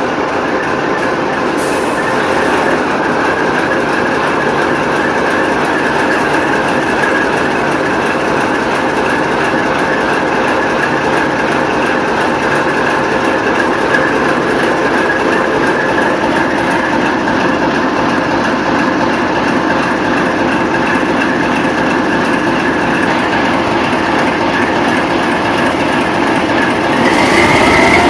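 TEP70 diesel locomotive running on the move: a loud, steady mechanical din of the diesel and running gear, with a high whistle held over it. Near the end it grows louder and its tones rise.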